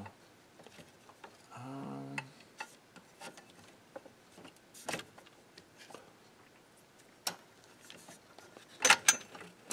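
Scattered light clicks and taps of hand tools and small parts being worked inside an old tube tape recorder's metal chassis, with a louder clatter of clicks near the end.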